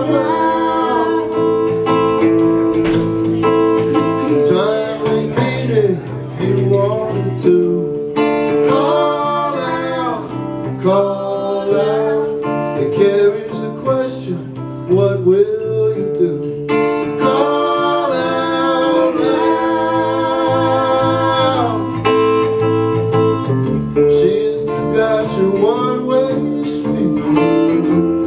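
Live folk song: a man singing in phrases over an electric guitar, with held chords ringing underneath.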